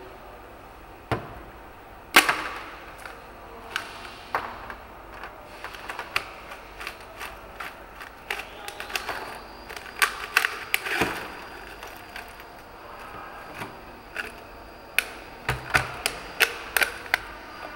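A frozen plastic water bottle being cracked open by hand on a freezer lid: sharp cracks of ice and plastic and the clatter of ice chunks breaking away. The loudest crack comes about two seconds in, with runs of quick clicks and knocks near the middle and again toward the end.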